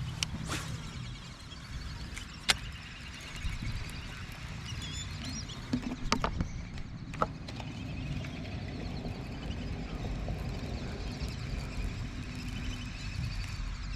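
Outdoor ambience with a steady low rumble of wind on the microphone, a few sharp clicks in the middle, and faint bird chirps.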